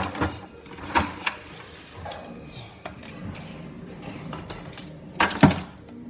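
Tools being handled and knocked on a wooden floor: a few sharp clacks about a second in, and a louder quick cluster of two or three knocks near the end.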